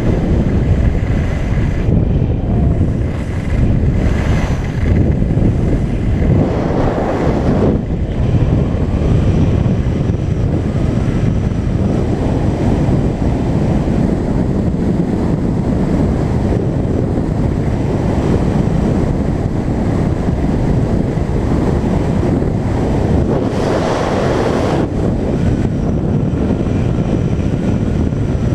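Steady wind rumbling on an action camera's microphone while skiing downhill, with skis hissing over the groomed snow. The hiss swells into two louder rushes, about a quarter of the way in and again near the end.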